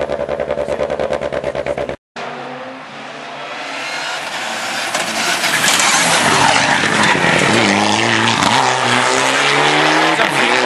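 Rally cars at speed. First a rapid, even engine pulsing that cuts off abruptly about two seconds in; then another rally car approaches, growing louder, its engine revving up and down through gear changes as it passes at full throttle.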